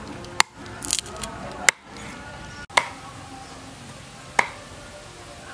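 Cleaver chopping pork ribs on a round wooden chopping block: four sharp chops at uneven intervals.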